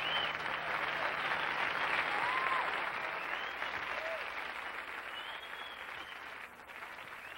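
A crowd applauding, with a few short cheers rising above the clapping, fading out gradually.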